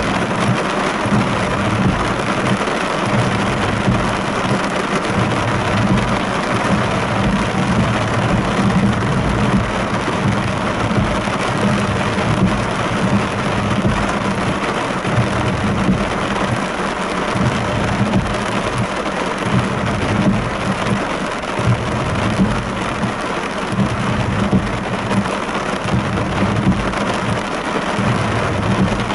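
Heavy rain pelting a car's windscreen and roof during a thunderstorm, heard from inside the car as a steady, dense patter.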